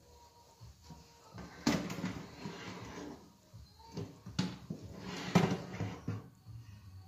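A metal baking tray being slid out of an oven on its rack: scraping, with a few sharp metal clanks.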